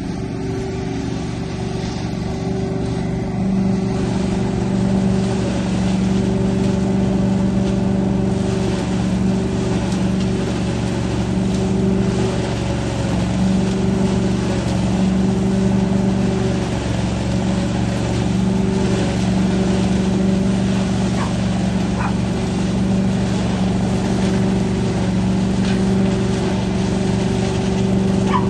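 Truck-mounted leaf vacuum loader running steadily and sucking up raked leaves through its wide intake hose: a steady droning hum that gets louder about four seconds in.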